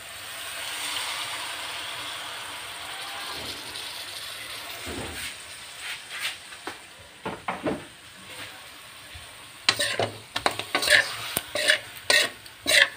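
Pork chops sizzling in a frying pan as marinade is poured over them, with a utensil scraping and knocking against the pan. The sizzle swells about a second in; the knocks come scattered from midway and turn loud and frequent near the end.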